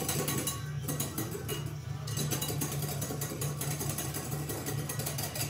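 Wire whisk beating a thickening sauce in a cut-glass bowl, a rapid, even clicking of the wires against the glass, over a low steady hum.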